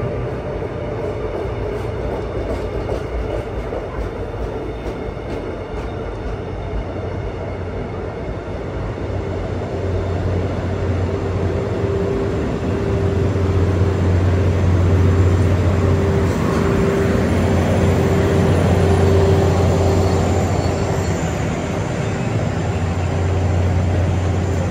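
Passenger train running, heard from inside the carriage: a steady rumble and rush of wheels and air, with a low hum that grows louder about ten seconds in.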